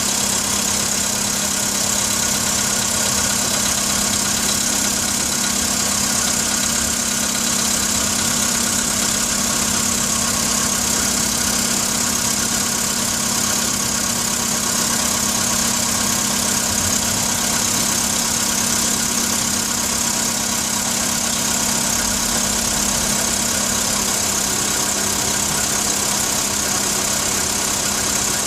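Volkswagen Polo Sedan engine idling steadily, recorded for a knock that the owner hears in it.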